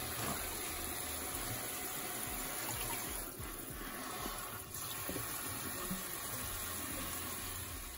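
Kitchen tap running in a steady stream onto leafy greens being rinsed by hand in a colander and mesh strainer, splashing into a stainless steel sink.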